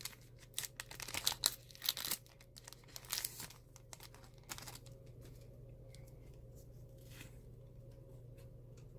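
Plastic and foil packaging of a Pokémon card blister pack crinkling and tearing in irregular bursts as it is wrenched open with some struggle. About five seconds in the tearing stops, leaving only a faint steady hum.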